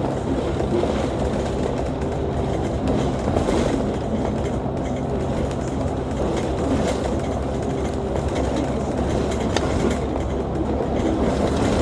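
Cabin noise inside a moving double-decker bus: the diesel engine's steady drone under road rumble, with the engine note changing about six and a half seconds in and a few light rattles from the body.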